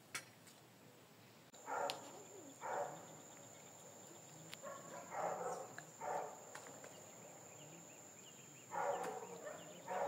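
A dog barking faintly, about six short barks at uneven intervals, over a steady high-pitched whine that starts about a second and a half in.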